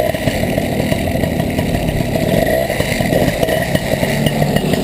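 Small two-stroke moped engine running steadily, a dense buzz of rapid firing pulses.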